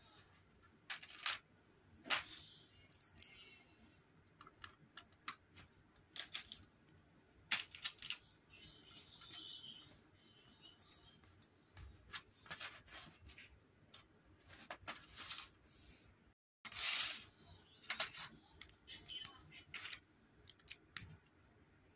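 Plastic Lego bricks and plates clicking and rattling as they are handled and pressed together by hand, a run of sharp clicks at irregular intervals with some scraping between them.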